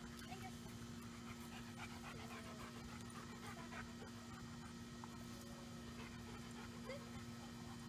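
A dog panting faintly and steadily, over a steady hum.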